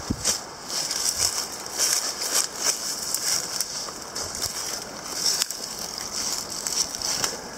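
Footsteps crunching through dry fallen leaves and twigs on a forest floor: irregular crackling and rustling with each step.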